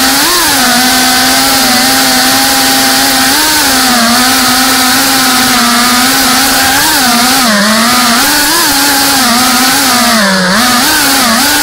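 FPV quadcopter's motors and propellers whining loudly over a strong hiss, the pitch wavering up and down with the throttle.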